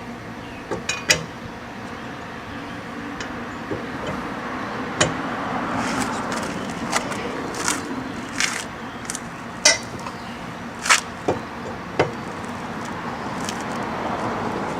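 Lug wrench clinking and knocking against a car wheel's lug nuts as they are broken loose: about ten sharp metallic clicks at irregular intervals, over a steady background rumble.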